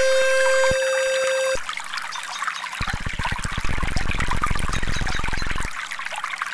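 Trickling water with synthesized tones laid over it. A steady pitched tone with overtones stops about a second and a half in, and a low buzzing tone sounds from about three seconds to nearly six seconds.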